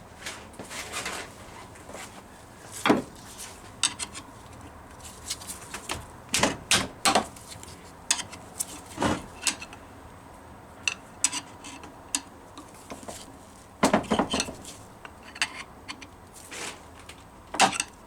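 A metal tool prying and scraping at the old oil seal in the differential housing of a Rover P6, giving irregular metallic clinks, scrapes and taps in bursts. The seal has a metal frame, which makes it awkward to hook out.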